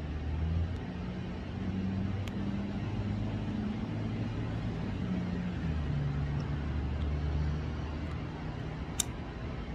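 A distant engine running, a low hum whose pitch shifts up and down, with a single sharp click about nine seconds in.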